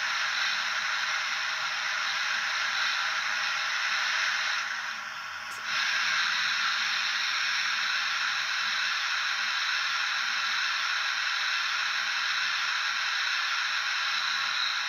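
Hornby TTS sound decoder in a model Black 5 steam locomotive playing steam effects through its small speaker. First comes the steady hiss of the boiler blowdown, which drops away about five seconds in. It is followed by a steady hiss of the safety valve blowing off.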